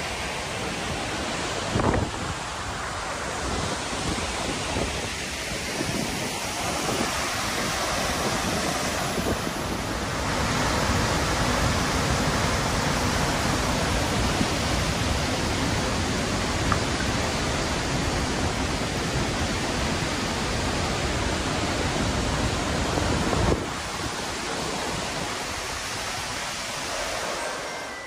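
Tad Yuang waterfall in heavy flow: a steady, even rush of falling water and spray, with wind on the microphone. There are two brief thumps, about two seconds in and near the end.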